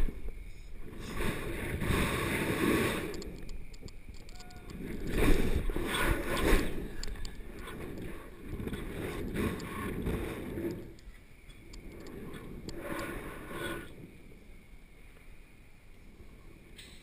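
Wind rushing over a GoPro's microphone as a bungee jumper bounces on the cord. It comes in about four surges a few seconds apart, one for each swing, each fainter than the last, and dies away near the end as the bouncing settles.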